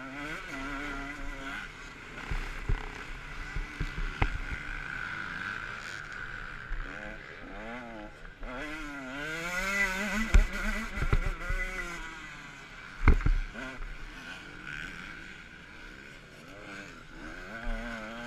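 Motocross bike's single-cylinder engine, close up from an onboard camera, revving up and down again and again as the rider accelerates and shifts. A few sharp knocks come through, the loudest about two-thirds of the way in.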